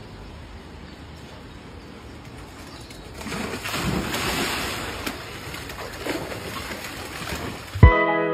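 Water splashing in a stream as something plunges in, over a steady background with a few low coos like a pigeon's. About a second before the end, plucked-string music with sharp notes cuts in loudly.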